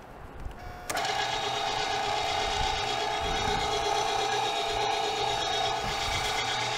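A 1.5-horsepower MEAT! Your Maker electric meat grinder switches on about a second in and then runs evenly with a steady whine while grinding cold venison trim.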